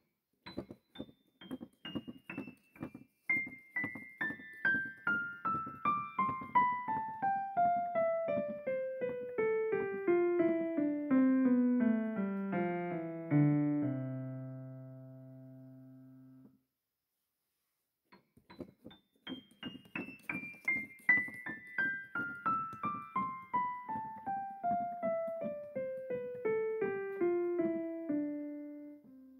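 Piano music: a run of single notes stepping down from high to low, ending on a held low chord about halfway through. After a couple of seconds of silence the same descending run starts again.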